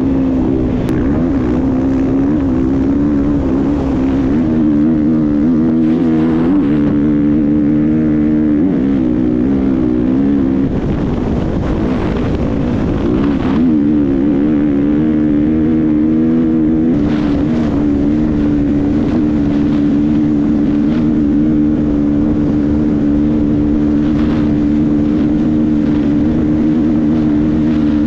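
Off-road dirt bike engine running hard at speed, its pitch rising and falling with the throttle for the first half, then holding steady for the last ten seconds or so.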